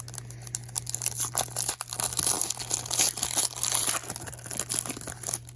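A trading card pack's wrapper being torn open and crinkled by hand, a dense crackling that goes on for about five seconds and stops just before the end.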